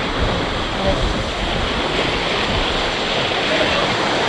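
Steady rush of wind and sea water around a sailing ketch under way, with wind buffeting the microphone in low gusts.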